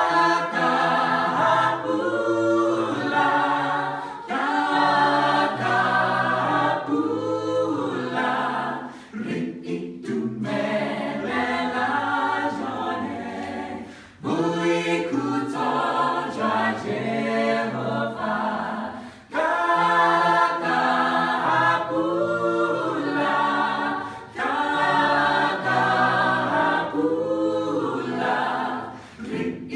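Small mixed choir of men and women singing a sacred song a cappella in harmony, in phrases with brief breaks between them.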